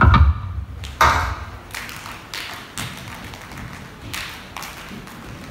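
Flamenco dancers' live percussion: foot stamps and hand claps (palmas). A heavy stamp with a deep thud at the start and another about a second in, then lighter, sharp single strikes roughly every half second to second.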